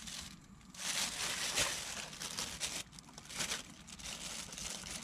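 Plastic bag crinkling in irregular bursts as hands open it and shift the small shrimp inside.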